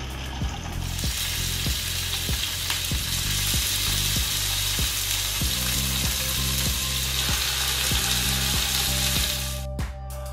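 Chicken drumsticks and pieces sizzling as they fry in hot oil in a frying pan. The sizzle rises about a second in and cuts off suddenly near the end. Background music with a steady beat plays underneath.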